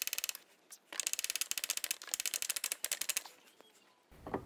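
Ratchet wrench clicking rapidly in three or four short bursts, about a dozen clicks a second, as the tie rod end nut is run off.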